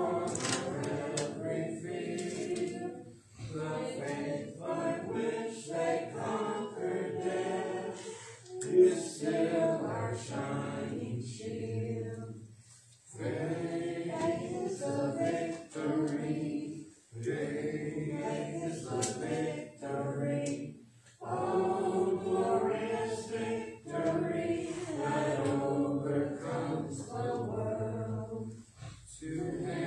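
A church congregation singing a hymn a cappella, voices only with no instruments, in phrases broken by short pauses between lines.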